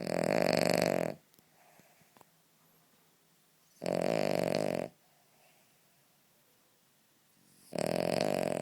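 Cavalier King Charles spaniel snoring: three loud snores about four seconds apart, each lasting about a second, with faint breaths in between.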